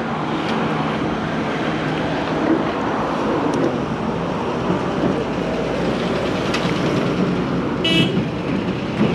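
Steady motor-vehicle noise, with a short high-pitched horn toot about eight seconds in.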